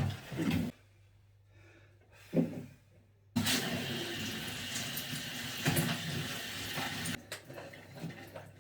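Toilet flushing: a sudden rush of water starts about three seconds in, runs steadily for about four seconds, then eases off.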